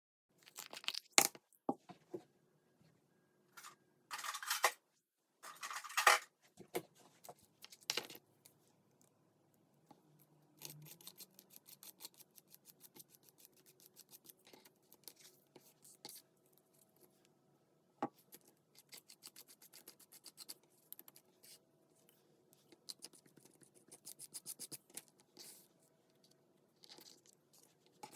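Paper and cardstock being handled by hand: a few short rips and scrapes, then a long run of quick light rustles and ticks.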